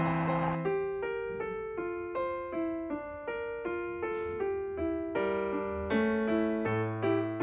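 Background music: a piano playing a light melody of short, evenly spaced notes, about four a second.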